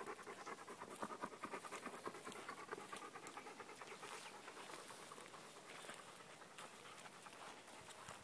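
A large dog, a Leonberger, panting fast and evenly, the breaths fading as it walks away into the brush.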